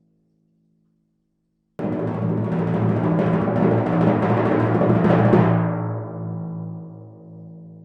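Timpani roll: it starts suddenly about two seconds in, builds slightly, then stops a little past five seconds and the drum rings on, fading away.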